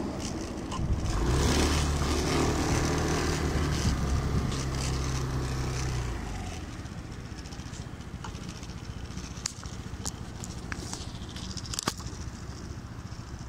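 Small motor scooter engine running with a steady low hum, which drops away to a much quieter level about six seconds in. A few sharp clicks and knocks follow near the end.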